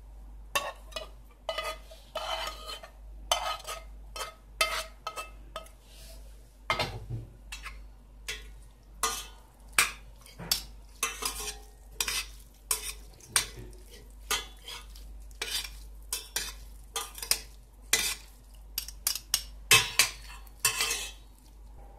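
Metal spoon scraping tomato sauce out of a frying pan into a stainless steel pot, then a spoon and fork clinking and scraping against the pot as boiled fusilli is tossed with the sauce, in quick irregular strokes.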